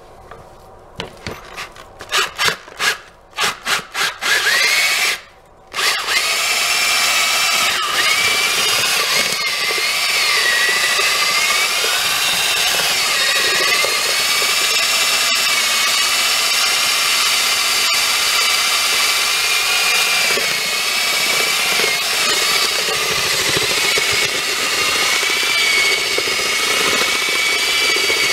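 Electric drill spinning a paddle mixer in a bucket of joint compound to mix water into it. A few short trigger bursts come first, then a long continuous run from about six seconds in, the motor's whine wavering in pitch as the paddle works through the mud.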